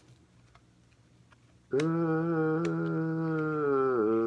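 Near silence with a single click at the start, then about two seconds in a person hums one long, level 'hmmm' that runs on to the end.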